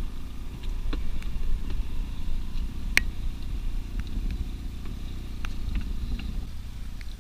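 A boat's motor running with a steady low rumble, with a few sharp clicks scattered through; the rumble eases off near the end.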